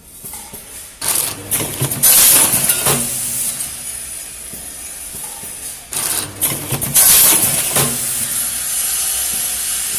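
Screw packaging machine (SPM-25) working through its cycle: two loud bursts of hissing with clicks and rattling, about five seconds apart, with a steady hiss in between.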